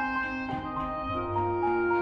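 Instrumental background music: a melody of held notes changing about every half second over a low bass line.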